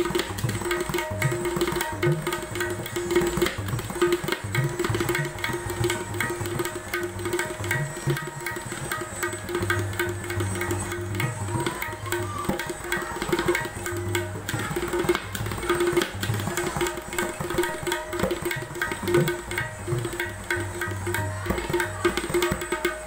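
Tabla played continuously in a fast stream of strokes: the small right-hand drum rings at one steady pitch, and deep bass strokes come from the larger drum.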